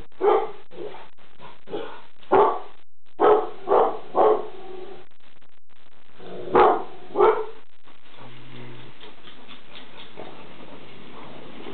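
Labrador retriever giving alert barks: about seven loud, single barks in irregular bursts, stopping after about seven seconds.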